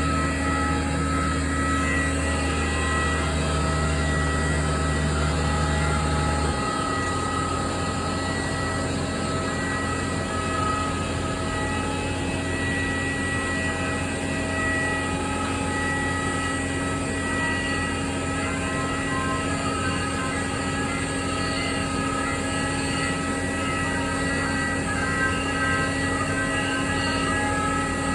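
Jet aircraft engines running at an airfield: a steady high whine over a low rumble, the deepest part of the rumble dropping away about six seconds in.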